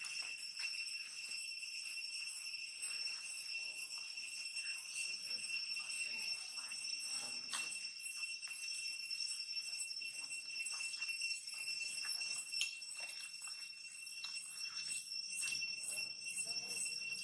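Infant macaque suckling at its mother's nipple, making faint wet smacking clicks scattered throughout, over a steady high-pitched drone of insects.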